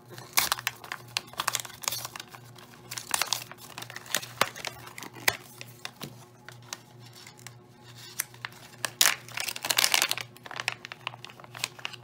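Clear plastic parts bag crinkling and rustling in irregular bursts as it is handled and opened to take out a coax cable. The bursts are loudest about nine to ten seconds in.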